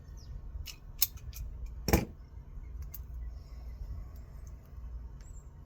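Sharp clicks and snaps of a hand tool cutting into the insulation of heavy electrical wire while it is being stripped back, the loudest snap about two seconds in.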